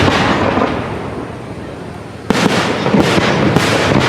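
Fireworks display: loud bangs and crackling that die away over the first two seconds, then a fresh volley of several sharp bangs about two seconds in, followed by more crackling.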